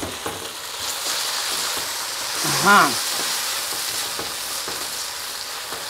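Sausage slices and vegetables sizzling in a hot frying pan as they are stirred with a wooden spatula, a steady frying hiss. About halfway through comes a short vocal hum that rises and falls in pitch.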